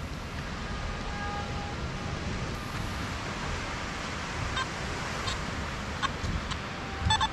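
Metal detector, likely a Nokta Makro Simplex, giving a few short beeps from about halfway through, coming closer together near the end as its coil passes over a buried metal target. Under the beeps, a steady rumble of wind and surf runs throughout.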